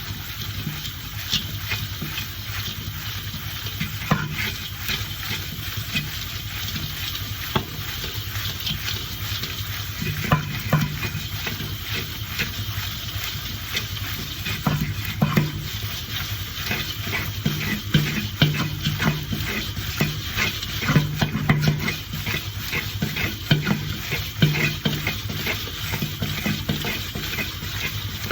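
Popcorn being stirred in a bowl as it is coated with a cheese drizzle: a steady crackly rustle with many light clicks and knocks, busier in the second half.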